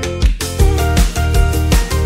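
Upbeat intro music with a steady beat and bass, no speech.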